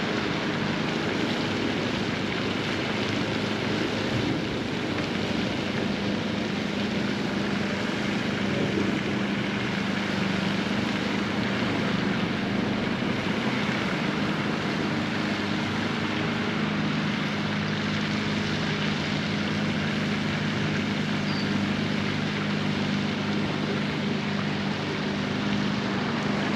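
An engine drone holding a steady low pitch, growing a little firmer about halfway through, over a constant rushing noise.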